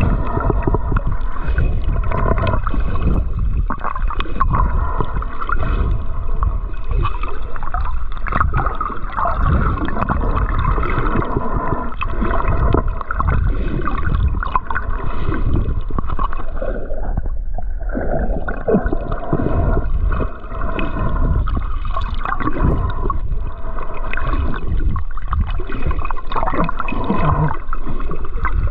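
Continuous loud gurgling and sloshing of moving water.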